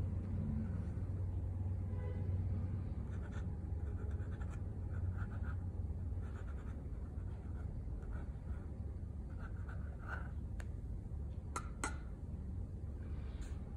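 Dip pen's metal nib scratching across drawing paper in short, repeated hatching strokes, with two sharp clicks near the end, over a low hum that is louder in the first couple of seconds.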